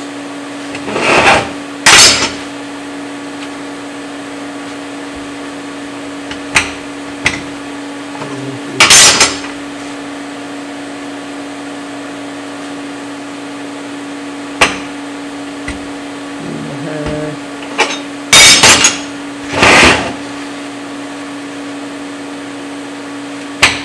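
Pieces of flat steel bar knocking and clattering against a metal work table as they are handled and positioned: a few sharp knocks and several louder, half-second clatters, over a steady hum.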